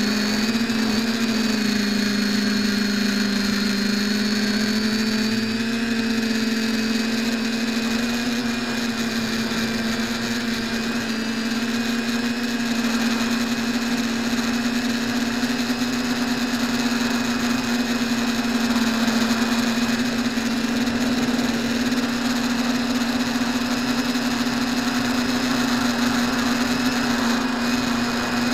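TBS Discovery-style quadcopter's electric motors and propellers running in flight, a steady hum heard through the onboard keychain camera's microphone. The pitch dips a little about two seconds in and comes back up around eight seconds, then holds steady.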